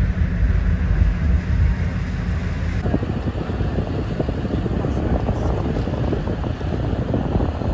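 Wind buffeting the microphone aboard a moving boat, a heavy low rumble; about three seconds in it changes to a rougher, crackling rush of wind.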